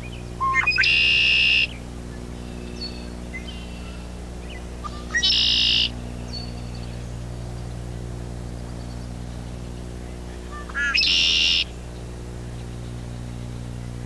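Male red-winged blackbird singing its konk-la-ree territorial song three times, about five seconds apart: a few short notes, then a buzzy trill. A steady low hum lies underneath.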